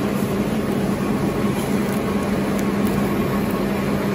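Automatic glue-lamination napkin tissue production line running: a steady, even machine noise with a constant low hum.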